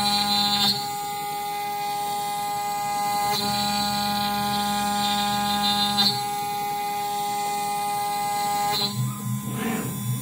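Home-built CNC router milling a pocket in a wooden board: its spindle and stepper motors give off a steady whine made of several fixed tones. The tones switch to a new pattern about every three seconds as the axis moves change, with a brief rougher noise near the end.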